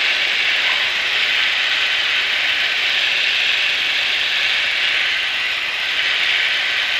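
Piper Archer's four-cylinder Lycoming engine, propeller and airflow on short final, heard as a loud, steady rushing noise through a GoPro microphone.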